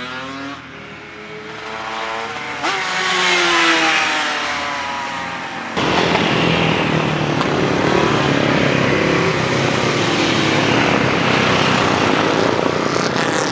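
Classic racing motorcycles at speed, engines revving hard with their pitch sweeping up and down as they pass. About six seconds in the sound jumps suddenly to a louder, denser engine noise that holds to the end.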